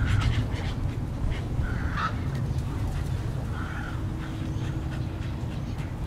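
Bird calls and clicking from a wading-bird nesting colony: a few short, harsh calls about two seconds apart, with a quick run of clicks near the start. A steady low rumble lies underneath.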